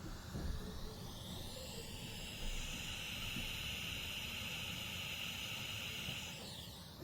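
Steady hiss from a Gemini PA-7000 preamp turned up to full volume, strongest high in the treble and swelling about a second in before easing near the end. This is the noise floor of its phono stage, now fitted with a low-noise 2068 op-amp in place of the 4558, and it reads about 49 dB on a phone meter.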